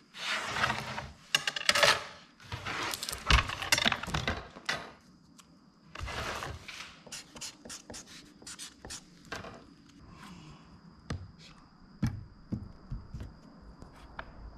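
Plywood canoe station forms being shifted and slid against each other, scraping and knocking for the first five seconds or so, then lighter taps and scratches of pencil and marker on the plywood and a metal square being set down. A faint steady high whine comes in about five seconds in.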